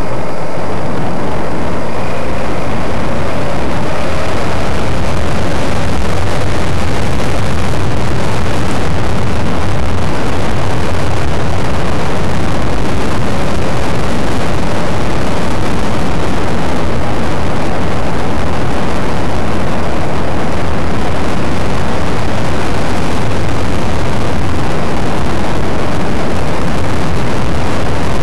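Dual-sport motorcycle riding at speed: loud, steady wind rush on the bike-mounted camera's microphone over the running engine.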